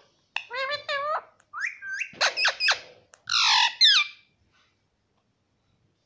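Indian ringneck (rose-ringed) parakeet calling close up: a run of high calls that bend up and down in pitch over about four seconds, ending in loud squawks.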